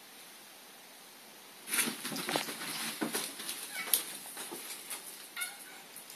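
A Russian blue cat and a West Highland white terrier scuffling, with scrabbling, sharp clicks and short cat cries starting a little under two seconds in.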